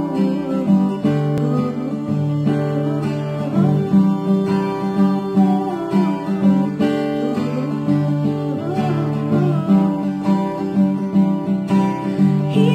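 Acoustic guitar strummed in steady chords, with a woman singing a slow melody over it.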